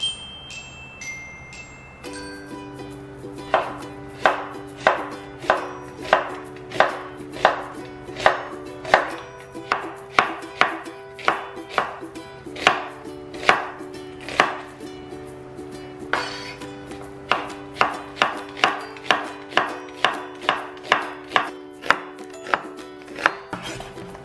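A chef's knife slicing through onions onto a wooden cutting board, in a steady series of sharp chopping strokes. The strokes come about one and a half a second at first, then quicken to about two and a half a second in the last part.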